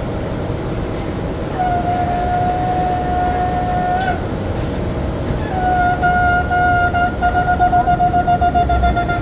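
Shofar blown by hand: one long held blast that bends up slightly as it ends, then after a pause a blast broken into a few shorter notes, running into a rapid staccato of about six short notes a second near the end.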